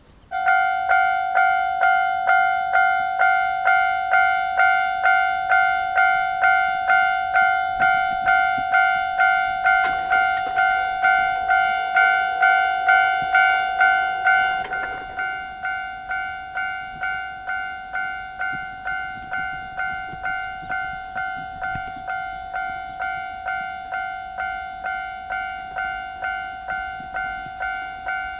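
Japanese railway level-crossing electronic alarm starting suddenly, a ringing two-tone ding repeating about twice a second. About halfway through it drops to a lower volume and keeps ringing at the same pace.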